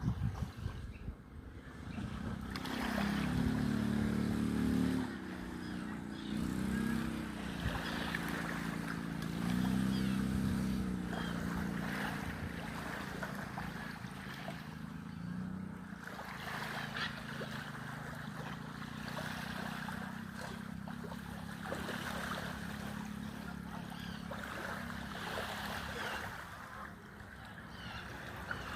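A motor running, its pitch rising and falling, over water splashing and gurgling.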